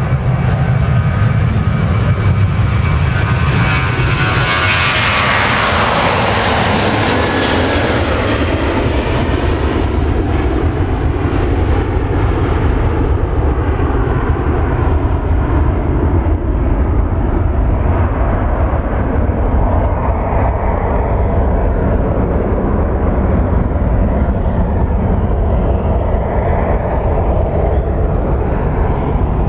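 Boeing 737-800's CFM56-7B turbofan engines at takeoff thrust as the airliner rolls, lifts off and climbs away. The loud engine whine sweeps down in pitch as the jet passes about four to eight seconds in, then gives way to a steady, duller rumble as it recedes.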